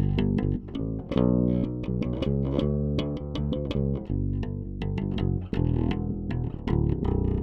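Warwick Vampyre SN-5 five-string active bass played direct with no amp, a riff of sharply plucked notes in quick succession. The bridge pickup is on its own, the treble is full up and the bass EQ is at halfway.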